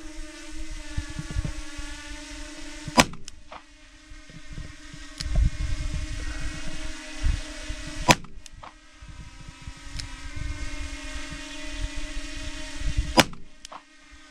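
Three shots from a Smith & Wesson Model 351 PD snub-nose revolver firing .22 Magnum (CCI MaxiMag 40-grain hollow points), each a sharp crack, about five seconds apart.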